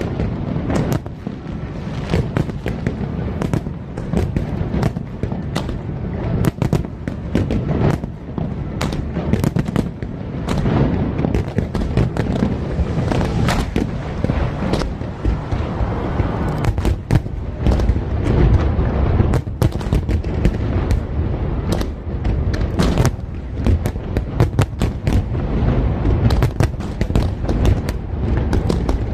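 Fireworks display: rapid, overlapping bangs and crackles, several a second, over a steady low rumble of booms.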